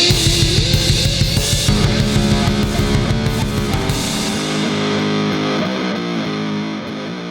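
Doom metal instrumental at 100 bpm: electric guitar, bass and drums. A fast low chugging stops about four seconds in, the chords ring on, and the music fades toward the end.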